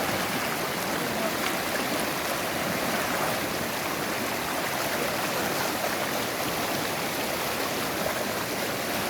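Small river running over stones: a steady rush of flowing water.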